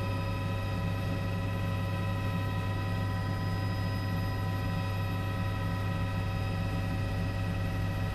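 Steady drone of an aircraft in flight heard through the crew's intercom: a low hum with several steady tones above it, unchanging throughout.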